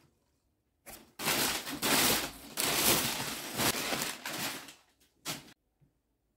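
Crumpled brown kraft packing paper rustling and crackling as it is pulled out of a cardboard box, in a loud stretch starting about a second in and ending a little after five seconds in with one last short crackle.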